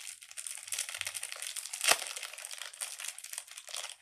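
Plastic packaging crinkling continuously as it is handled, with one sharp snap about two seconds in.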